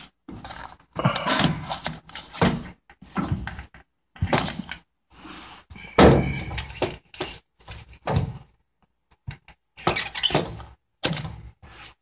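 Irregular knocks, thunks and scrapes of a media air filter and the furnace's sheet-metal filter rack being handled, the loudest thunk about halfway through.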